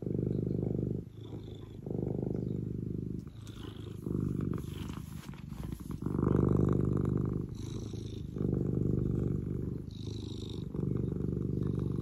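Domestic cat purring close to the microphone, in repeated low swells about one and a half to two seconds apart.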